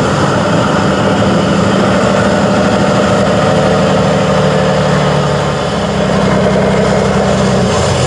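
Tatra 813 8x8 truck's diesel engine running under load as the truck crawls up a steep slope, with a steady note that drops slightly in pitch a little past the middle.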